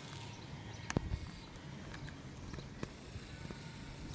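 Faint light rustling and pattering of Rottweiler puppies moving about on grass, with scattered small ticks and one sharper click about a second in.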